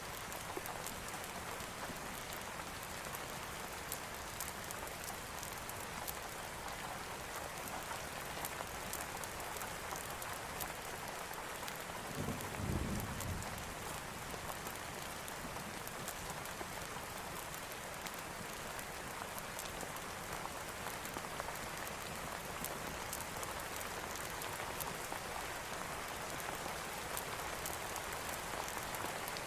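Steady rain falling, an even hiss with fine scattered drop ticks. About halfway through, a short low rumble of distant thunder rises and fades.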